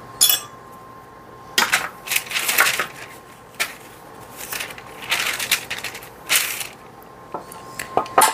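Parchment paper crinkling and rustling in a string of short bursts as it is lifted and smoothed over a baking sheet, with a few sharp clicks among them.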